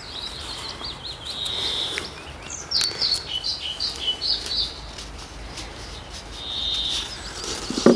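Small songbirds singing: scattered chirps, a falling run of notes about three seconds in and a short trill about six and a half seconds in. Under them come faint clicks and scrapes of a knife shaping the mouthpiece of a green willow whistle.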